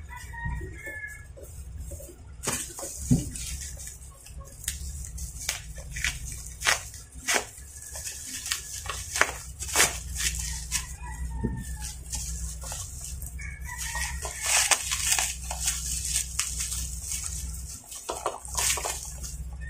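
Plastic mailer pouch and bubble wrap torn open and crinkled by hand: a run of sharp crackles and rustles. A chicken clucks a few times in the background.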